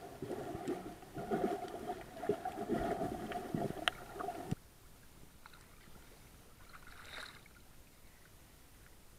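Muffled underwater noise picked up through an action camera's waterproof housing, with rumbling and scattered clicks and knocks as it moves through the water. About four and a half seconds in it cuts off suddenly as the camera breaks the surface, leaving only a faint hiss.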